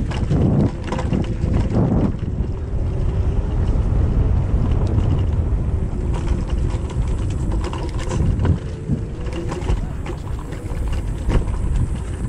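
Kugoo Max Speed electric scooter ridden over rough sandy, stony ground, with small rattles and knocks from the scooter as it crosses the bumps. Wind buffets the head-mounted microphone throughout.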